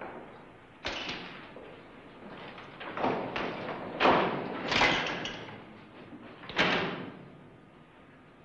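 A series of about five sharp knocks and thuds, one to two seconds apart, the loudest about four seconds in, each dying away quickly.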